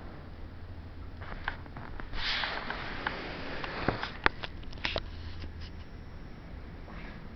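A dog sniffing close to the microphone, with a few sharp clicks and knocks near the middle.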